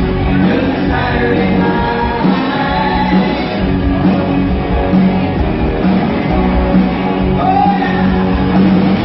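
Rock band playing live, electric guitars and a drum kit with a lead vocal, in a loud, dense, continuous mix.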